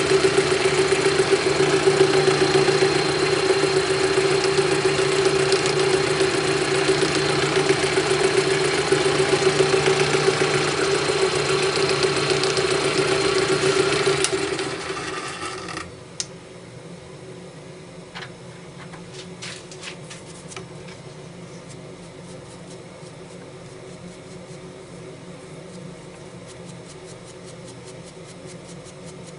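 Bench drill-milling machine running steadily with a strong hum, then switched off about 14 seconds in and winding down over a second or two. A few light clicks and taps follow over a quiet background.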